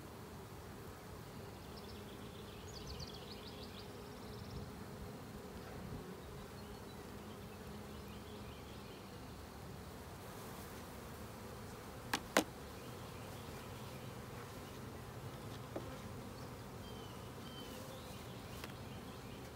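A swarm of honey bees buzzing, a steady hum. Two sharp knocks come close together about two-thirds of the way through.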